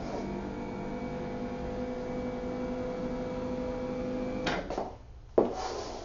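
Electric lift motor of a chiropractic table humming steadily while raising the table height. The motor cuts off about four and a half seconds in and is followed by two knocks, the second one louder.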